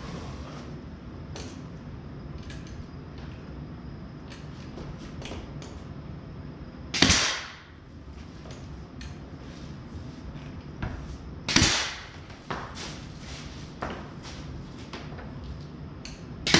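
Brad nailer firing into trim: a sharp shot about seven seconds in, another some four and a half seconds later, and a third at the very end, with scattered light clicks and taps in between.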